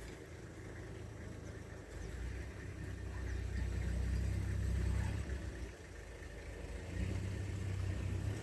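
A vehicle engine running at low revs, a low rumble that swells for a few seconds, dips briefly past the middle and swells again near the end.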